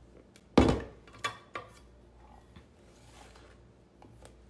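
A few knocks and clicks of a flour container being handled on a stone countertop and its plastic lid taken off, the loudest knock about half a second in.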